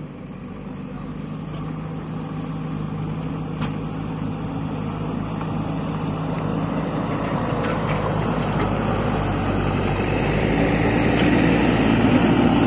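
Diesel engine of a JCB backhoe loader running, growing steadily louder, with a higher engine note coming in about ten seconds in.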